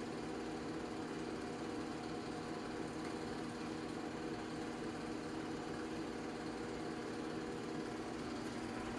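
Home-movie film projector running with a steady mechanical whir.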